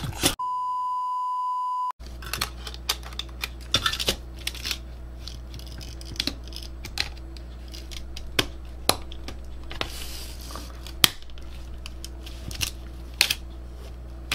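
Parts of a slim laptop DVD drive being handled and fitted: scattered sharp clicks and light rattles of the sheet-metal case and plastic tray, over a steady low hum. Near the start a steady high beep lasts about a second and a half, with all other sound cut out.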